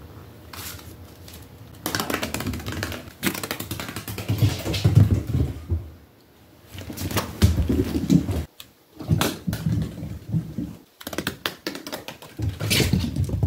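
Rapid clicking and skittering on a hard vinyl floor in several bursts with short pauses: a cat's claws scrabbling as it chases a small ball across the floor, with dull thumps underneath.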